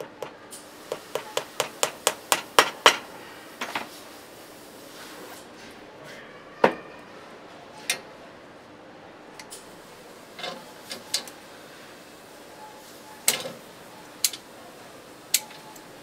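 Cobbler's hammer tapping a shoe held on an iron last: about a dozen quick strikes at roughly four a second, growing louder, over the first three seconds. After that come a few scattered single knocks and clatter.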